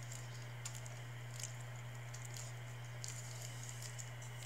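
Faint crinkles and light ticks of small hands squeezing a foil MRE grape jelly packet, over a steady low hum.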